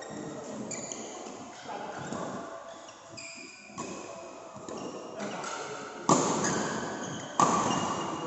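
Badminton rally on an indoor court: shoes squeaking on the court floor, then two sharp racket hits on the shuttlecock about a second and a half apart near the end, each ringing out in the hall.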